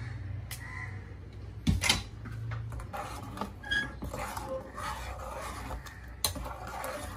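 A metal spoon stirring thick chickpea curry, scraping and knocking against the inside of a metal pressure cooker pan, with a sharp knock just before two seconds in and another near the end. A low steady hum sits underneath.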